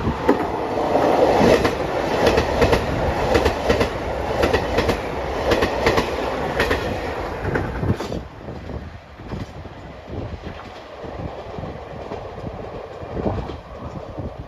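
Diesel railcar train passing through the station at speed: a rapid run of wheel clacks over rail joints with a rumble underneath, dropping off sharply about eight seconds in as the train moves away.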